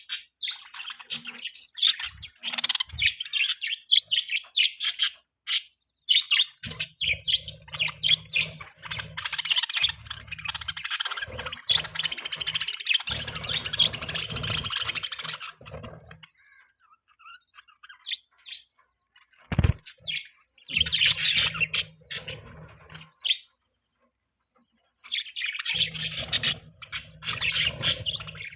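Budgerigars chirping and chattering in bursts of quick, high chirps, falling quiet twice for a few seconds.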